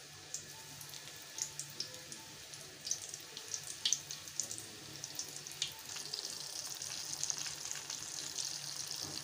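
Flour-coated chicken pieces frying in hot oil in a steel frying pan. Scattered crackles as each piece goes in build to a steady, dense sizzle over the last few seconds as the pan fills.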